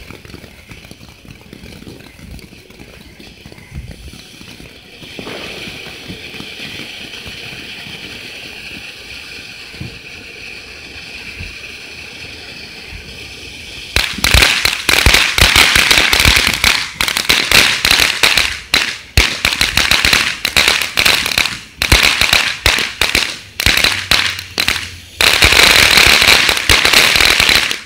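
Ground fireworks fountains spraying sparks: first a steady hiss that swells about five seconds in. Then, about halfway through, a much louder, rapid crackling sets in as a crackling fountain throws out a shower of sparks, and it cuts off suddenly at the end.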